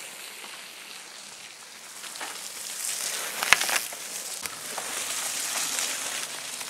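Mountain bikes passing on a muddy forest trail: a crackly hiss of tyres rolling through wet mud and fallen leaves, swelling as riders go by about three and five seconds in. A single sharp click about three and a half seconds in.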